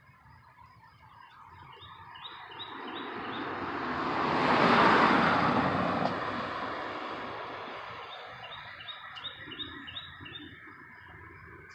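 A car passing close by, its tyre and engine noise swelling to a peak about five seconds in and then fading as it drives away. A bird sings two quick runs of short high chirps, one early and one near the end.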